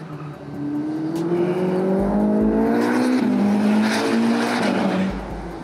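Ferrari SF90 Stradale's twin-turbo 4-litre V8 accelerating hard, rising in pitch for about three seconds. The pitch then drops suddenly as the dual-clutch gearbox shifts up, and the engine holds and fades as the car sweeps past near the end.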